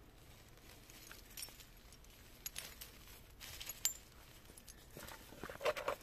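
Metal coins clinking against each other and dropping onto soil and dry leaves, a scattering of sharp clicks through the middle. Near the end, a burst of rustling and scraping as a hand digs into loose soil.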